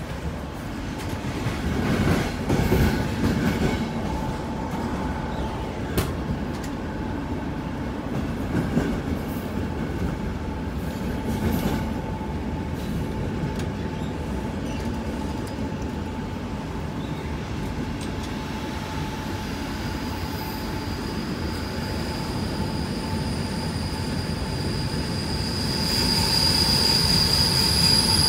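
Passenger train coach heard from inside, rumbling and rattling along the track with occasional clacks from the wheels. Later a high steady squeal of the wheels and brakes sets in and grows loud near the end, as the train slows into a station.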